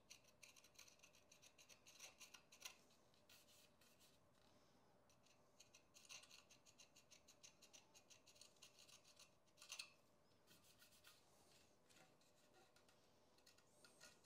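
Faint rubbing and small clicks from handling a carbon bicycle wheel rim while it is inspected; the rest is near silence.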